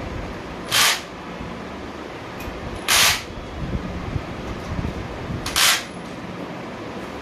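Cordless drill-driver run in three short bursts, about a second in, near the middle and near the end, while a bolt is driven at the bicycle's front fork.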